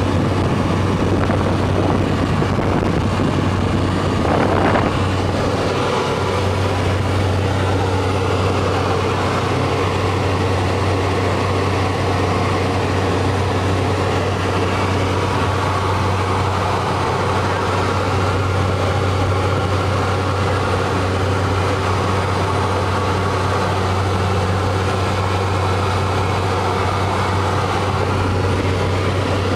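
Cabin drone of a Cessna Caravan in flight: the single turboprop engine and propeller run steadily, a loud, unchanging deep hum under a constant rush of engine and air noise, heard from inside the cabin.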